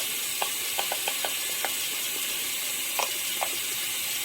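Water running from a tap in a steady hiss, with a scatter of small sharp clicks and knocks over it, about eight in all.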